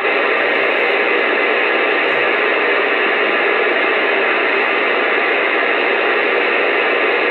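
Steady, even hiss of static from a Uniden Bearcat CB radio receiving on AM channel 6, with no voice on the channel.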